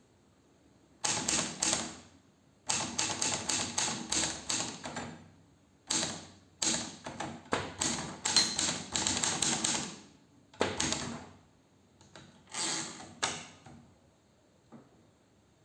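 Hermes Baby portable manual typewriter being typed on: quick runs of sharp key strikes in bursts of a few seconds, separated by short pauses.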